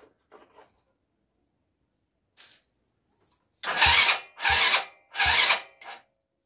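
ATV electric starter cranking in three short bursts, with the engine not catching.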